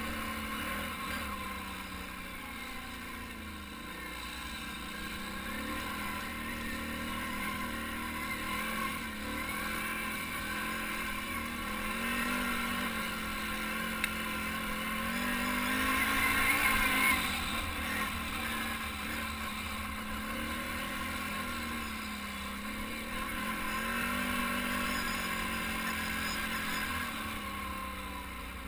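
ATV engine running under changing throttle on a dirt trail, its pitch rising and falling as the rider speeds up and eases off, loudest a little past halfway.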